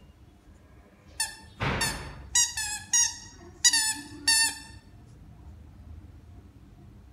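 A puppy's squeaky ball toy squeaking in a quick series of about six short squeaks as the puppy chews and squeezes it, with a breathy hiss of air among the first squeaks.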